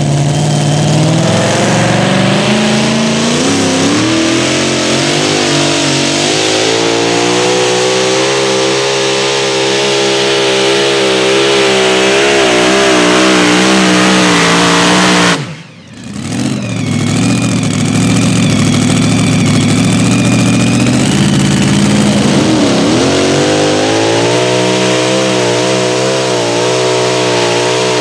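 Supercharged pulling-truck engines at high revs hauling a sled. One engine climbs steadily in pitch, the sound drops out abruptly about halfway, then a second truck's engine runs up, dips briefly and holds high again.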